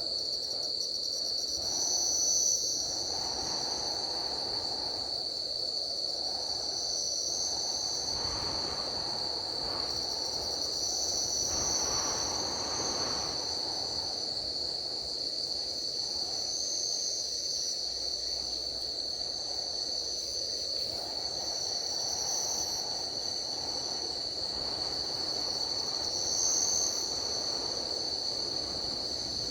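Forest insects chorusing: one steady high-pitched drone throughout, with a second, higher call swelling and fading every few seconds, over a low rushing hiss.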